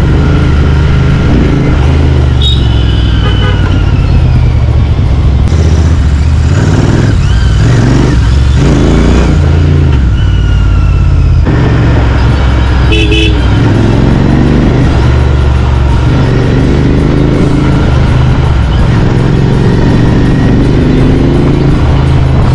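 Royal Enfield Continental GT 650's parallel-twin engine running through a Power Race slip-on exhaust while riding, its note rising and falling with the throttle. Vehicle horns toot briefly a few seconds in and again about halfway through.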